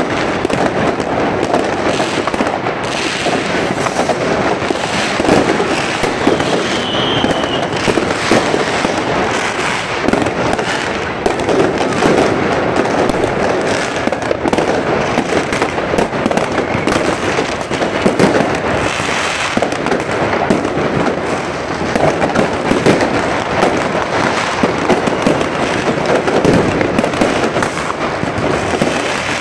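Many consumer fireworks going off at once: a continuous dense crackle of firecrackers and rocket bangs, with a short whistle about seven seconds in.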